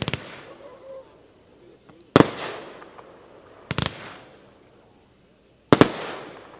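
Magnus Fireworks "Walk the Plank" cake firing its shots: a quick cluster of sharp bangs at the start, then single bangs about every one and a half to two seconds and a close double near the end. Each bang is followed by a fading crackle and echo.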